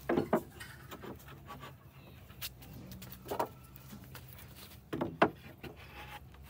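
Scattered knocks of wood being handled or tapped in a workshop: a pair near the start, one in the middle and a sharper pair near the end, over a steady low hum.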